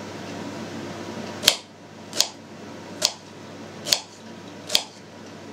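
A kitchen knife slices a peeled onion into half rings on a cutting board. Five sharp knocks of the blade striking the board come a little under a second apart, starting about a second and a half in.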